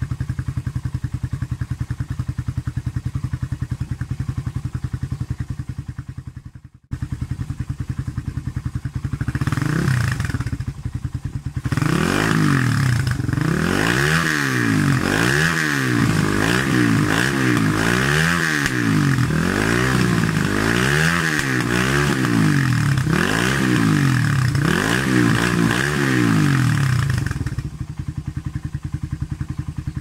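Suzuki Raider R150's single-cylinder four-stroke engine running through an open Orion aftermarket pipe, first idling steadily with one short rev. From about twelve seconds in it is revved in a quick run of throttle blips, each rising and falling about once a second, then settles back to idle near the end.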